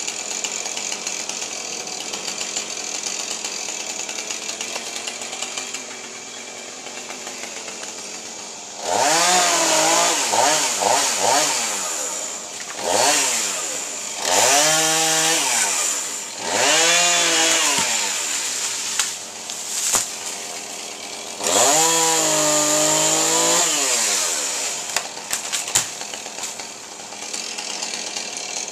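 Two-stroke chainsaw idling, then revved hard in several bursts of a few seconds each after about nine seconds, the pitch rising and falling with each burst. A few sharp clicks near the end.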